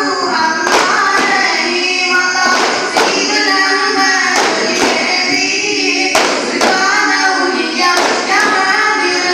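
Daff muttu: a group of performers singing a devotional song together while striking daf frame drums, sharp drum beats landing through the singing.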